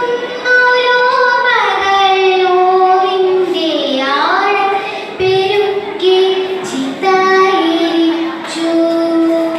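A child's voice reciting a poem in a sung, chanted melody, unaccompanied, holding long notes with slides up and down between them.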